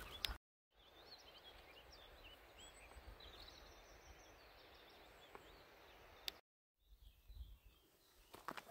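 Faint birdsong, a few scattered chirps over a quiet background hiss. Near the end a few footsteps crunch on a gravel path.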